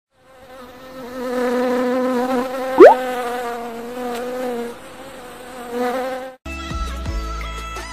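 Buzzing-bee sound effect: a wavering insect buzz that eases off and swells again, cut by a quick rising whistle, the loudest sound, about three seconds in. Bass-heavy electronic music starts just after six seconds.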